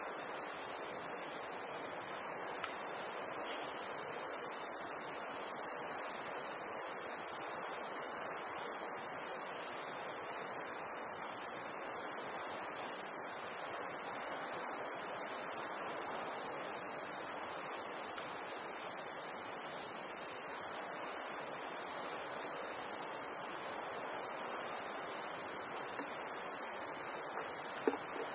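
Steady, high-pitched chorus of rainforest insects, unbroken throughout, over a soft rushing noise.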